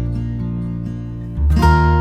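Background music: acoustic guitar strumming chords, with a new chord struck about one and a half seconds in.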